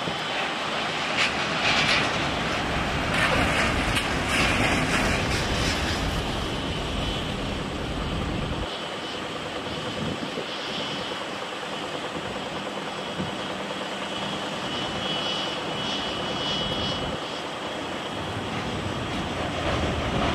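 Twin-engine widebody jet airliner on final approach, its engines giving a steady rumble that grows as it nears, with a faint high whine in the later part.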